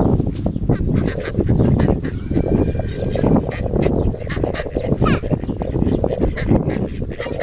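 A flock of ducks quacking, many short calls overlapping without a break.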